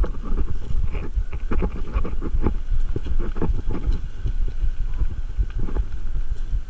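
Mountain bike rolling along a rocky gravel ledge trail: tyres over stones and the bike rattling, with frequent short clicks and knocks over a steady low rumble.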